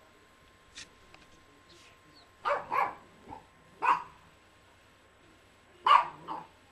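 Yorkshire terrier barking: about five short, sharp barks, a quick pair, a single one, then another quick pair near the end.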